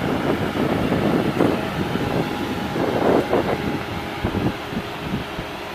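Wind buffeting the microphone in irregular gusts, with a steady engine hum faintly underneath in the second half.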